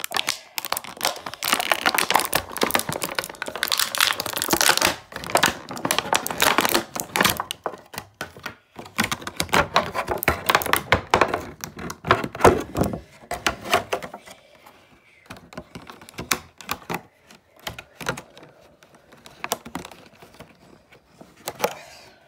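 Clear plastic packaging crinkling and crackling in quick irregular clicks as hands work an action figure out of its plastic tray and bag. About two-thirds of the way through it turns quieter, with only scattered clicks.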